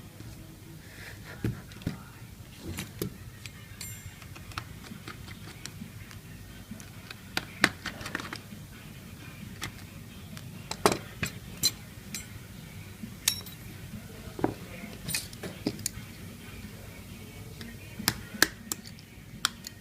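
Small metal tools and phone parts clicking and tapping as an iPhone 6 is worked on by hand. The sharp clicks come irregularly, a few of them louder than the rest.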